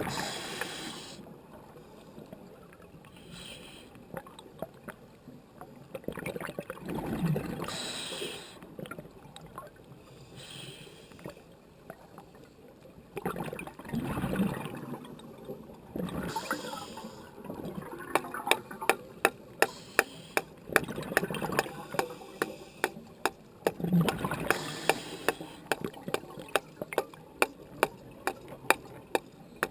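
Scuba diver breathing through a regulator underwater: an inhalation and a gush of exhaled bubbles every several seconds. Over the last third, a run of sharp clicks, about two a second.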